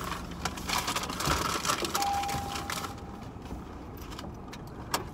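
A single steady electronic beep, about a second long, about two seconds in, over scattered clicks and rustling handling noise in a car.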